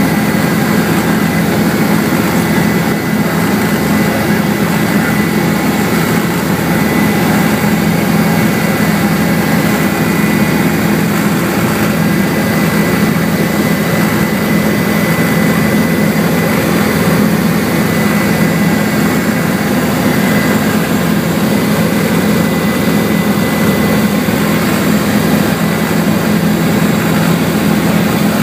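Helicopter turbine engine and rotor heard from inside the cabin: a loud, steady drone with a thin, steady high whine above it.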